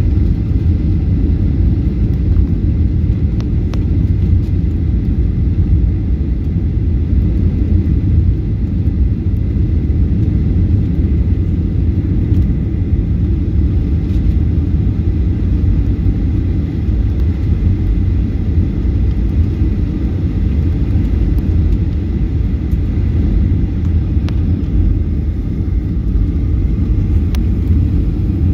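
Boeing 737-800 cabin noise on approach: a steady low rumble of engines and airflow heard from a window seat over the wing, with a faint steady whine above it.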